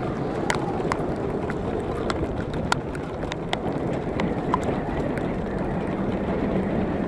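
Jeep Wrangler JKU driving up a gravel trail: a steady low rumble of engine and tyres on loose stone, broken by irregular sharp ticks and clicks several times a second.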